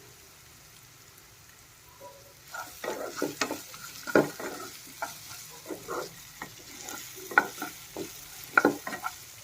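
A spoon scraping and knocking irregularly through a frying onion-tomato masala in a pan, over a faint sizzle, as the spices are stirred in. The stirring starts about two and a half seconds in after a quiet start.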